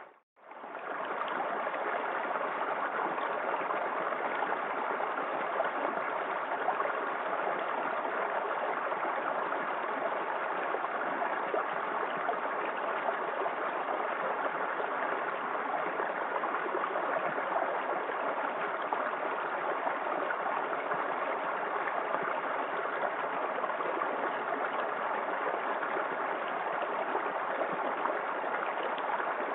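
Small waterfall in a forest creek: water splashing and rushing steadily. The sound cuts out for a moment right at the start and fades back in.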